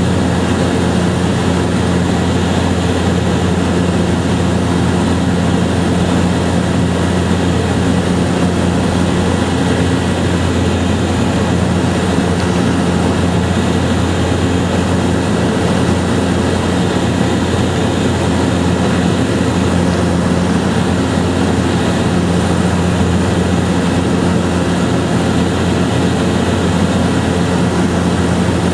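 A loud, steady engine drone with a constant low hum that does not change in pitch or level.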